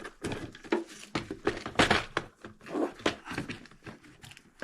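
Small parts and plastic packets being rummaged through in a tool-cart drawer: irregular clicks, rattles and rustles, the loudest a little under two seconds in.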